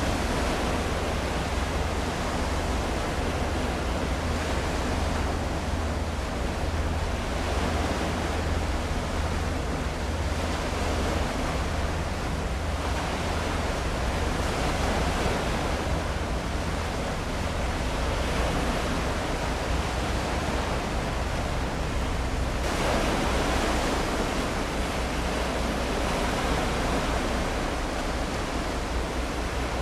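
Steady rushing noise of water and wind with a constant low rumble underneath. The noise swells briefly a little over two-thirds of the way through.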